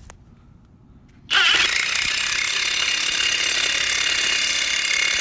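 Impact wrench starting about a second in and hammering steadily, a rising whine as it spins up at the start, as it runs a lug nut down to pull a new wheel stud into the hub.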